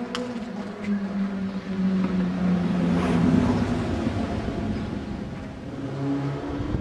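A motor vehicle engine passing by, its hum growing louder to a peak about three seconds in and then fading. There is a single sharp knock right at the start.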